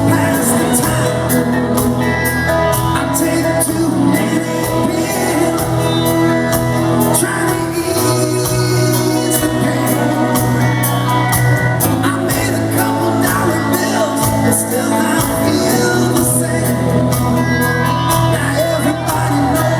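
Live rock band playing loudly, with singing over it.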